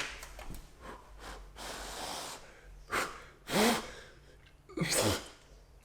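A man hawking and spitting: a long breath, then several sharp snorting, spitting bursts, one with a short falling throat sound. The spit goes onto the part as makeshift adhesive.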